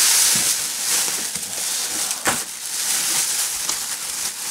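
Packaging rustling and crinkling as a statue piece is unwrapped by hand, with one sharp click a little over two seconds in.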